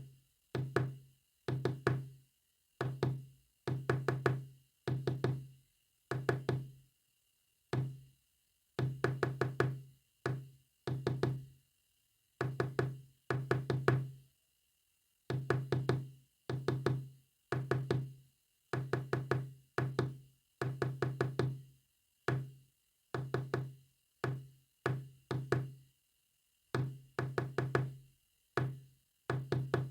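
Morse code sounded as low, pitched knocking: short and longer bursts of rapid strikes, each dying away, in irregular groups separated by pauses.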